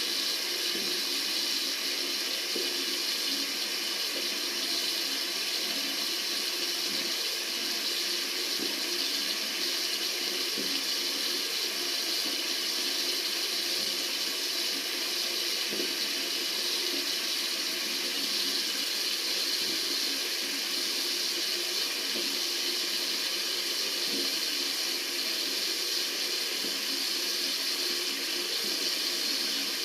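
Water running steadily from a tap, a continuous even rushing with no breaks.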